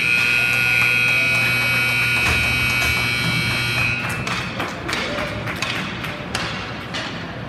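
Arena game horn sounding one steady, loud note for about four seconds, then stopping. Scattered knocks and taps follow, typical of sticks and skates on the ice.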